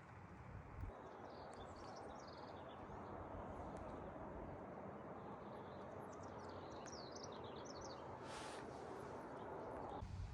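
Birds chirping, with a few quick calls about a second and a half in and a longer run of calls around six to seven seconds in, over a steady background noise. A short swish comes about eight seconds in.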